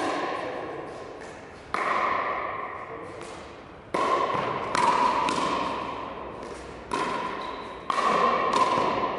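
A pickleball rally: paddles hit the hard plastic ball with about six sharp pocks in eight seconds, each ringing around a high tone. The pocks echo and fade slowly in a large, reverberant hall.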